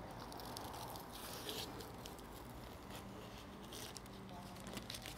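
Masking tape being peeled off painted steel bodywork, a faint, soft crackling.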